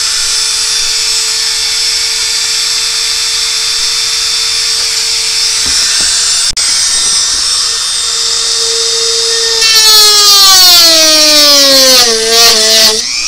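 Dremel rotary tool with a cutoff wheel running at a steady high whine, then cutting into a plastic interior trim panel: from about ten seconds in the sound gets louder and the pitch falls steadily as the wheel bites into the plastic.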